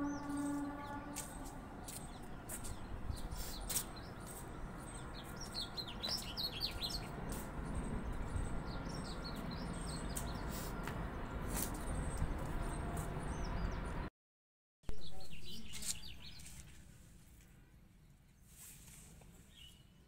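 Small birds chirping, many short high calls that bend up and down, over a low steady background noise with scattered clicks. The sound drops out about fourteen seconds in and returns quieter, with a few more chirps near the end.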